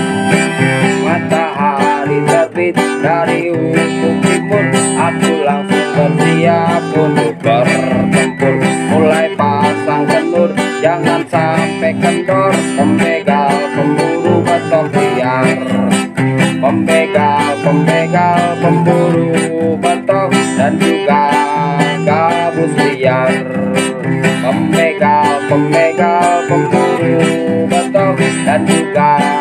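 Background music: an upbeat country-style tune on plucked guitar.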